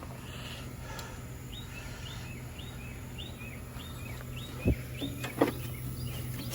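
Outdoor air-conditioning condenser unit running with a steady low hum. Its compressor is sounding abnormal, which the technician calls 'something funky'. A bird chirps repeatedly over it, about two short chirps a second, and there are a couple of soft knocks near the end.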